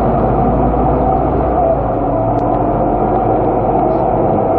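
Scania K230UB city bus heard from inside the cabin while under way: its diesel engine and ZF automatic gearbox drone steadily under the hiss of road noise.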